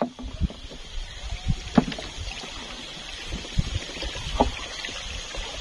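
Irregular knocks and thumps on a wooden boat, with a few sharper clicks, as a small catfish is reeled in and lifted aboard, over a steady faint high hiss.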